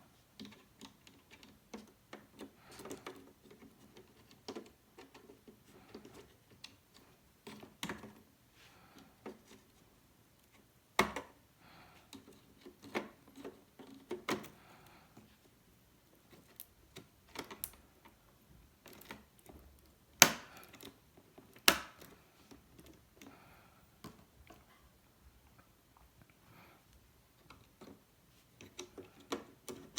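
Hands handling small computer parts and their plastic packaging: irregular light clicks and taps, with three sharper, louder clicks about a third of the way in and twice near two-thirds.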